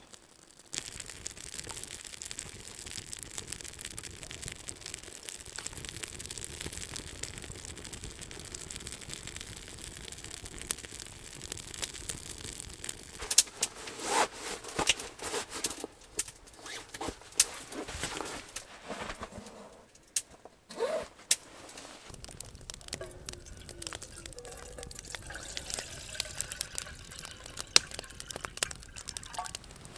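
Small kindling fire catching from birch bark and crackling. A stretch of louder knocks and rustling follows. In the last several seconds, water is poured from a bottle into a metal kettle.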